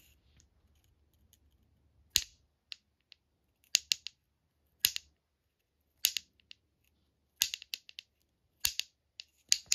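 Eggheads egg-shaped clacker on a handle, shaken so its two halves snap shut: sharp clacks, one at a time or in quick pairs and triplets about every second, then a fast run of clacks near the end.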